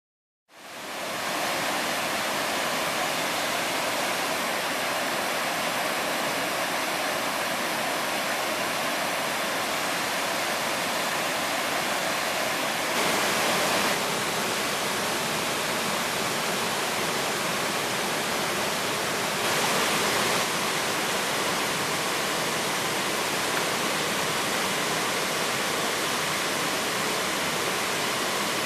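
Waterfall: a steady rush of falling water that fades in within the first second, with two brief, slightly louder moments about halfway through and again about two-thirds of the way in.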